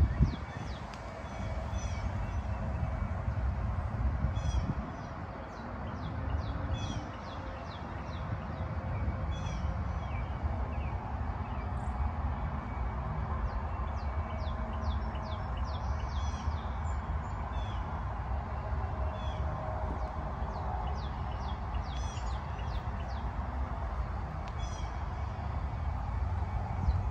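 Small birds chirping in quick series of short high notes that recur every second or two, over a steady low rumble.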